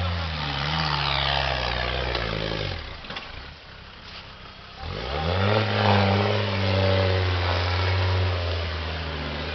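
Off-road 4x4's engine under load: it revs, drops away about three seconds in, then revs up again about five seconds in and holds high to the end.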